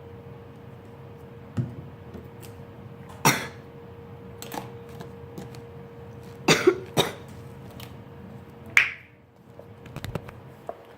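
Irregular short knocks and scrapes of containers and utensils being handled, about eight in all, over a faint steady hum.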